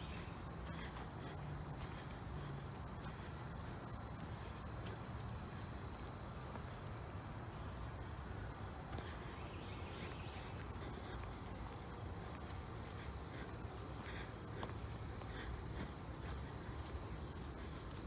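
Insect chorus in summer woodland, a steady unbroken high-pitched trill, with a fainter, higher trill joining for a couple of seconds about four seconds in.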